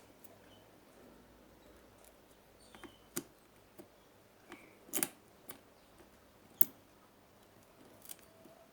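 Scattered sharp clicks and taps of small hand tools and parts being handled at an electronics workbench. A handful of separate clicks, the loudest about halfway through.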